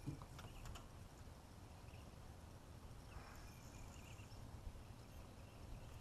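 Near silence: a faint low rumble with a few soft clicks in the first second.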